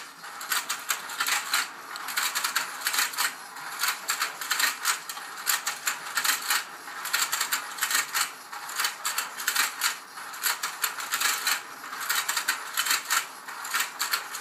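Let's Go Fishin' toy game's battery-powered turntable running, its plastic gears and the fish's opening and shutting mouths making a steady rapid clicking and clattering.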